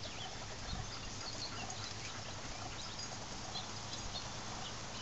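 An elderly Airedale terrier panting softly over a steady outdoor hiss.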